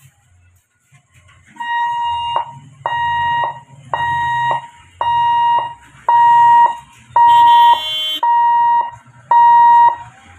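Railway level-crossing warning alarm sounding in repeated electronic hoots, each a steady pitched tone of under a second with a short pause, about one a second, growing louder over the first few. Each tone cuts off with a click, and a brief second tone joins once about seven seconds in.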